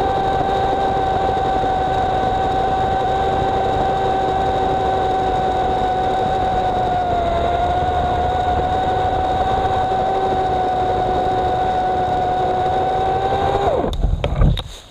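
EGO CS1800 battery-powered chainsaw running at a steady high whine as its chain cuts through a large tree trunk, the pitch dipping slightly about halfway through. Near the end the motor pitch drops and it stops, followed by a heavy low thump.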